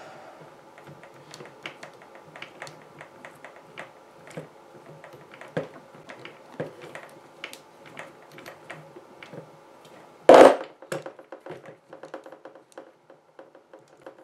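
Small plastic-and-metal clicks and ticks of a hand wheel wrench working a tight wheel nut off a Tamiya High Lift RC truck's wheel, with the rubber tyre handled in the other hand. One louder clatter comes about ten seconds in.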